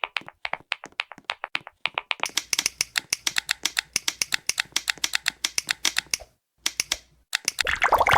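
Typing on a keyboard: a steady run of sharp key clicks, duller and a little slower for the first two seconds, then brighter and faster. After a brief silent break near the end, a denser, louder clatter of keystrokes starts.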